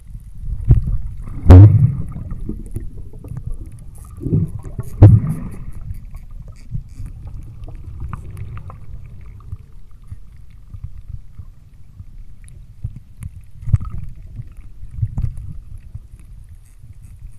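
Underwater camera audio: a low, muffled rumble of moving water with several dull thumps, the loudest about a second and a half in and again about five seconds in.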